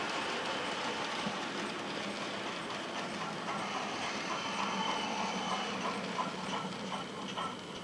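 Model steam locomotive's DCC sound decoder playing steam exhaust chuffs, about three a second, over a steady hiss, growing plainer from about three seconds in as the locomotive approaches with its goods train.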